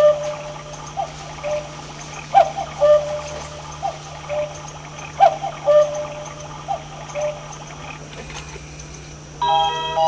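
Quartz cuckoo clock's electronic cuckoo call: two falling notes, a higher one then a lower one, repeated about every second and a half, about six times. Near the end the clock's electronic chime melody starts, played in simple stepped notes.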